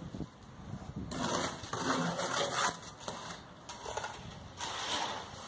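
Wet pea-gravel concrete mix being worked with a steel trowel: a handful of irregular scraping strokes of the blade through the gritty mix.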